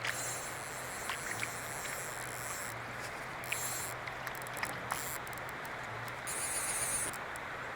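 Steady rush of flowing river water, with a few faint ticks scattered through.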